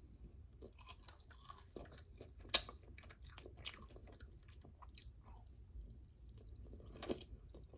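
A person chewing and biting chicken wings close to the microphone: soft, irregular crunches and wet mouth sounds, with a sharper click about two and a half seconds in and another near seven seconds.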